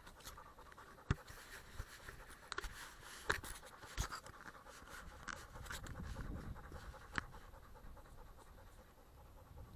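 Fast, faint panting breaths, with a handful of sharp clicks and knocks scattered through it.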